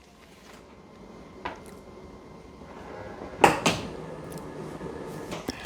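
Dreame L20 Ultra robot vacuum-mop at its base station reattaching its mop pads: a faint motor hum with a light click about a second and a half in and a sharp clunk about three and a half seconds in.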